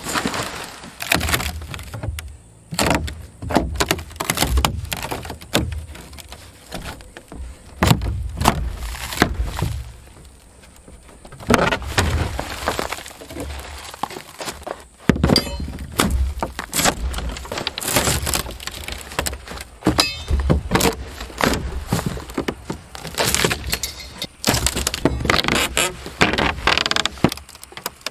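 Plywood roof decking being torn up and pried loose from the rafters: an irregular run of cracks, thuds and creaks as the wood splits and the nails pull free.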